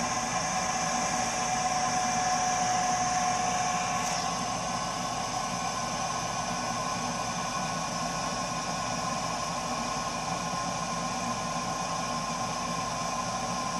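Burnham Alpine ALP150W gas-fired boiler running with a steady rushing noise and a whine; about four seconds in the lower whine fades and a slightly higher tone carries on. This is the strange noise the boiler often makes while running, with its cause unknown to the owner.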